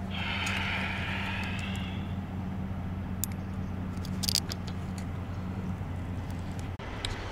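A truck engine idling steadily under a hiss that lasts about two seconds, then a few sharp metallic clinks from the trailer's steel door lock rod and latch being handled. The loudest clink comes about four seconds in.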